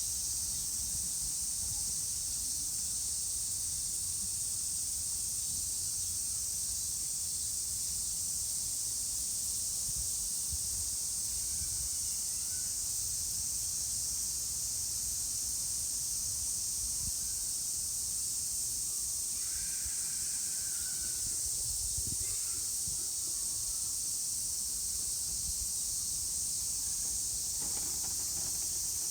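Cicadas singing in a continuous chorus: one steady, high, hiss-like drone that never breaks.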